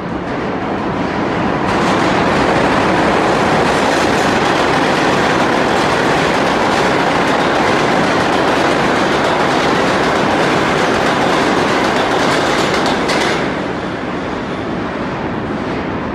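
Stainless-steel New York City subway express train running through the station at speed on the express track without stopping: a loud, steady rush of the train going by that swells about two seconds in and drops away about thirteen seconds in.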